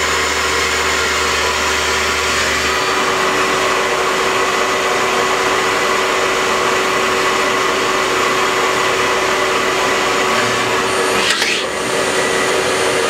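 Citizen L20 Type VII Swiss-type CNC lathe running a program dry, without coolant: the spindle and drive motors whir steadily with several steady whine tones. A low hum drops out about three seconds in. About eleven seconds in there is a brief rush of noise, and then a high steady whine sets in.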